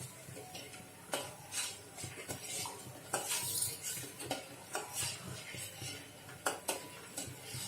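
A spoon stirring sugar and water in a pot over high heat, with irregular scrapes and clinks against the pot, to keep the sugar from settling and sticking to the bottom while it dissolves.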